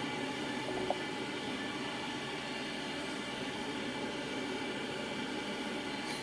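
Kotto solder fume extractor fan running steadily at about half speed: an even rush of air with a faint hum of steady tones. A small tick about a second in.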